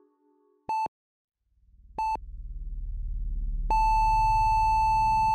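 Hospital heart monitor beeping twice, about a second and a quarter apart, then going into one continuous flatline tone about two-thirds of the way through: the patient's heart has stopped. A low pulsing rumble swells up underneath from about a second and a half in.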